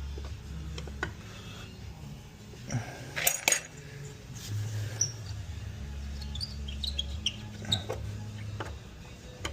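Scattered metal clinks and knocks of screws and hardware being handled as a wooden table is taken apart, with the sharpest cluster about three seconds in.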